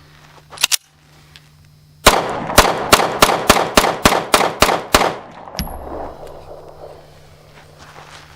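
Kel-Tec P11 9mm pistol fired in a rapid string of about ten shots in under three seconds, each crack trailing off in an echo. Two sharp clicks come about half a second in, and a dull thump follows the last shot.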